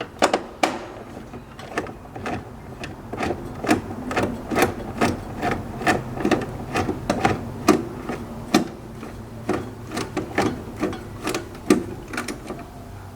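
A hand screwdriver turning out the last mounting screw of a vending machine's bill acceptor: a run of sharp, irregular metal clicks, about two or three a second.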